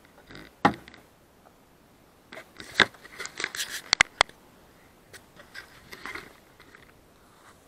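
Handling noise right on an action camera's microphone as it is fitted onto a head strap: rustling with a few sharp clicks, the loudest a quick pair about four seconds in.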